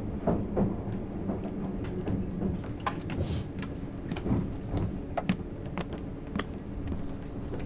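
Interior of a 651 series electric train at the end of its run into the terminus: a steady low hum with scattered clicks and knocks.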